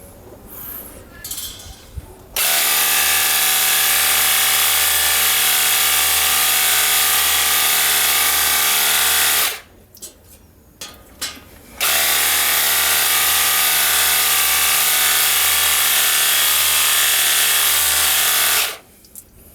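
Cordless 21 V battery handheld pressure washer running: a steady motor-pump hum under a loud spray hiss, starting about two seconds in, running about seven seconds, stopping for about two seconds, then running again for about seven seconds.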